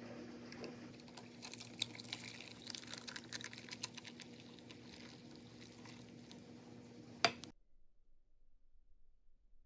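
Ice and glass clicking and crackling in quick irregular ticks over a steady low hum, ending in one sharp clink about seven seconds in; the sound then cuts off to near silence.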